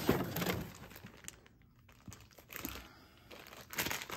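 Cardboard packaging rustling and scraping as a hand rummages in a box, loudest at the start, then a plastic bag crinkling near the end as a battery in it is lifted out.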